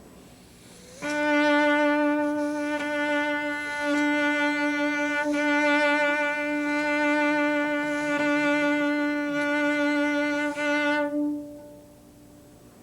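Cello playing one long bowed note with a steady vibrato for about ten seconds, as a vibrato exercise.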